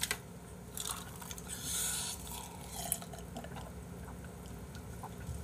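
Quiet sounds of a person drinking from a glass, with a few small clicks of the glass and eating sounds.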